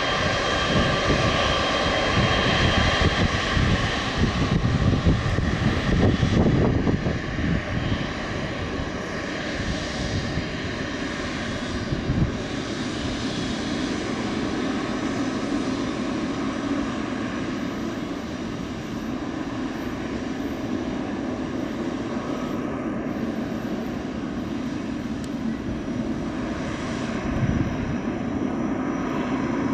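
Boeing 777-300ER's twin GE90-115B turbofans running at taxi power: a steady whine over a dull rush, a little louder for the first several seconds, then even.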